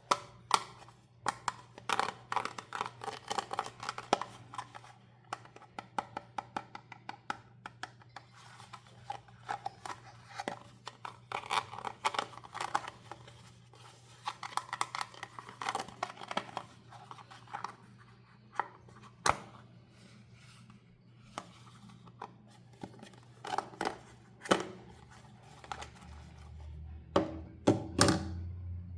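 Doll packaging being opened by hand: a dense run of sharp clicks, snips, tearing and crinkling of plastic and cardboard.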